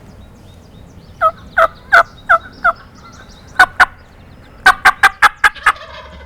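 Wild turkey calling: a string of loud yelps that break from high to low, then a faster run of sharp, choppy cutting notes.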